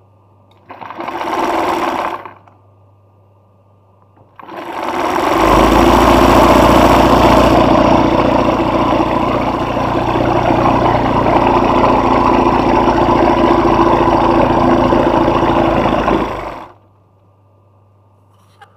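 Sewing machine stitching free-hand embroidery: a short run of about a second and a half, then after a pause a long steady run of about twelve seconds that speeds up at its start and cuts off quickly.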